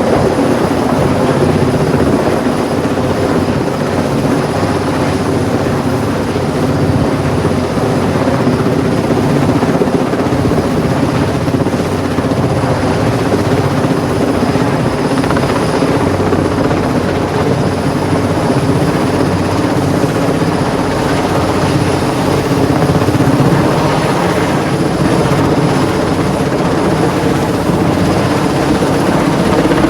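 Helicopter running steadily, a loud, constant drone from its rotor and engine.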